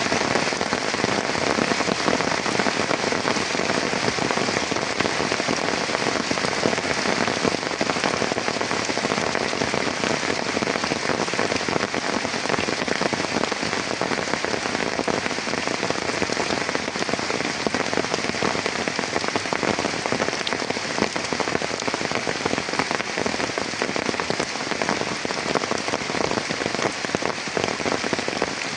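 Heavy rain falling steadily: a dense, unbroken hiss of countless drop impacts.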